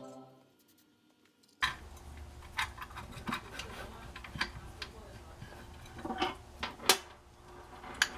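Background music fades out, then after a second of near silence come irregular light clicks and taps of small metal tools being handled on a workbench over a low hum.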